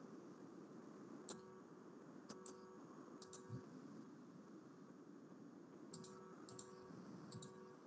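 Computer mouse clicking: about a dozen sharp clicks in two groups, several in quick pairs, over a faint steady hum.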